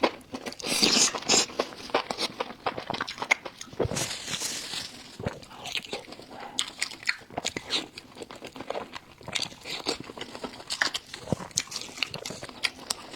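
Close-miked biting and chewing of crunchy food, a rapid, irregular run of crisp crunches and wet clicks.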